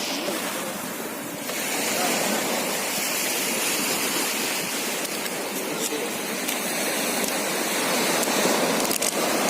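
Sea water rushing and surging: a steady, even hiss with no pitch.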